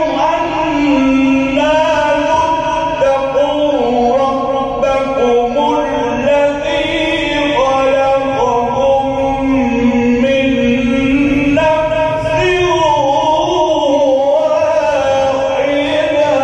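A male reciter chanting the Quran in a melodic tajweed style, drawing out long wavering notes in slow phrases with short pauses between them.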